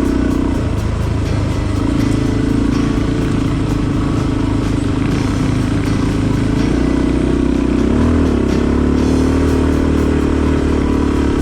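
Motorcycle engine running steadily while riding, its pitch dipping and rising slightly with the throttle, over steady wind rush.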